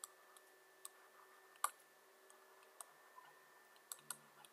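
Faint, scattered clicks of a stylus tapping on a writing tablet as handwriting is put down, about six ticks, the loudest a little after one and a half seconds and two close together near the end.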